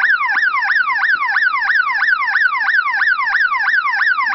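Electronic alarm siren of a homemade vehicle security system sounding in rapid falling sweeps, about four a second. It is the intrusion alarm, set off by tampering with the car's door handle.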